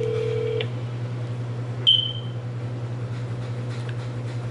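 Phone ringback tone on speakerphone, waiting for the call to be answered: a steady ring tone stops shortly after the start, in its usual two-seconds-on, four-seconds-off pattern. A short, sharp, high electronic ping sounds about two seconds in, and a steady low hum runs underneath.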